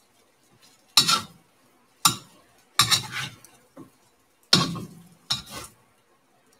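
A utensil scraping and clanking against a cast iron pan while stirring frying rice: about six separate sharp strokes roughly a second apart, with near quiet between them.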